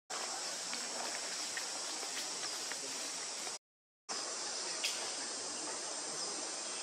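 Steady forest insect chorus, an even high hiss that drops out to dead silence for about half a second a little past the middle.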